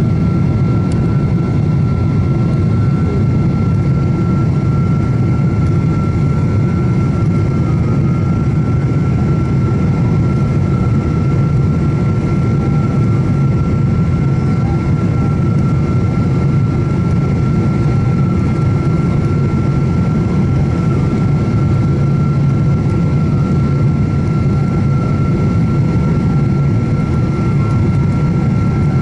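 Steady cabin noise inside a Boeing 777-200ER on approach: a low rumble of engines and airflow with a constant high tone above it.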